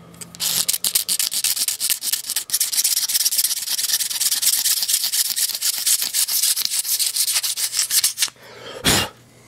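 Razor blade scraping carbon off the top of a small-engine piston in rapid, rasping strokes, which stop about 8 seconds in. A short burst of noise follows just before the end.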